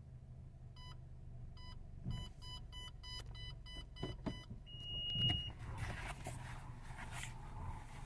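A car's parking sensor beeping as the car closes on an obstacle. Two slow beeps, then a quicker run of about three beeps a second, then a continuous tone for under a second, the sign that the obstacle is very close. Underneath is the low hum of the engine idling, and a thump with rustling and knocking follows the tone.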